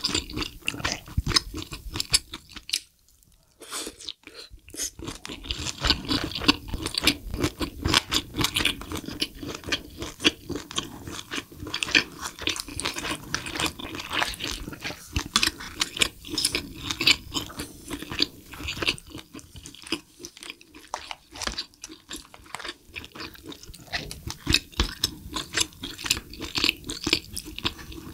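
Close-miked chewing of spicy braised lobster tail meat: a dense run of irregular mouth and chewing sounds, broken by a short pause about three seconds in.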